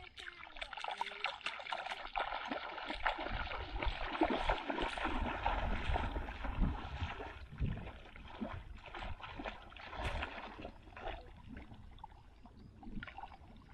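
Water splashing and sloshing, building over the first few seconds and easing off after the middle, with a low rumble on the microphone.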